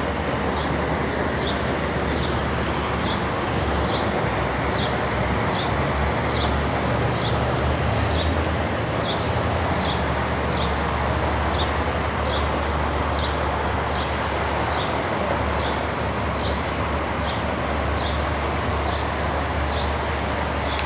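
Steady low rumble and background noise, with a short high chirp repeating evenly, about three chirps every two seconds.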